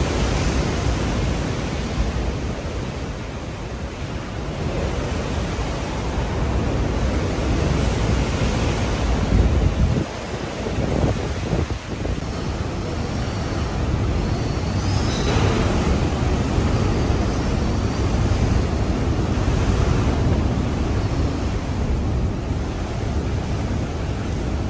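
Hurricane-force wind and wind-driven rain battering glass-paned doors and windows, heard from inside the building as a dense low rushing that swells and eases in gusts. The loudest gust comes about nine seconds in, and the level drops briefly around ten and twelve seconds in.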